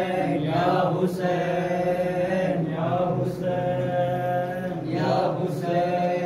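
A man's voice chanting long, wordless held notes into a microphone as the melodic opening of an Urdu/Hindi noha lament, each phrase gliding into the next about every two seconds.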